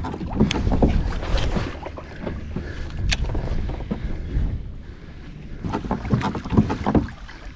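Wind buffeting the microphone over water lapping against a plastic fishing kayak, with a few sharp clicks and knocks.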